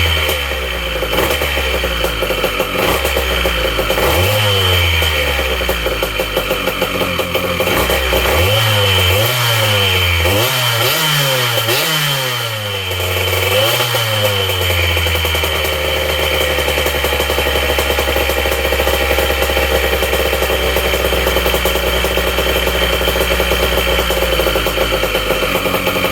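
Freshly rebuilt small engine running, revved up and let fall back once and then several times in quick succession, before settling into a steady idle about halfway through. This is its first run after the rebuild, with the ignition timing still far off.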